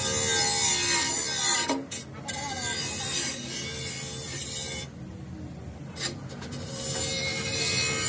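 Rough scraping and rasping noise, like a hand tool worked over a hard surface, pausing briefly twice.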